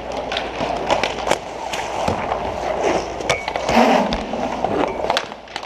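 Inline skate wheels rolling and scraping on plastic sport-court tiles during roller hockey play, with sharp clacks of sticks and puck scattered throughout. A louder thump comes about four seconds in, as the goalie drops onto his pads.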